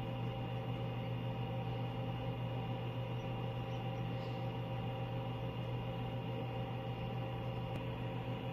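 Egg incubator running with a steady mechanical hum: a low drone with several constant higher tones over it.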